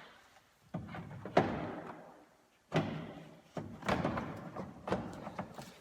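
A plastic radiator fan shroud being knocked and pushed into place: about six separate sharp knocks and clunks, each dying away quickly.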